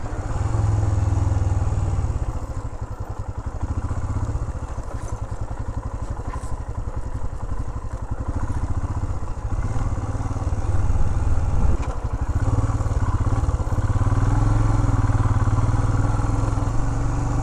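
Royal Enfield Himalayan's 411 cc single-cylinder engine running under way at low speed on a rough dirt track. It eases off for several seconds and then pulls harder and louder near the end.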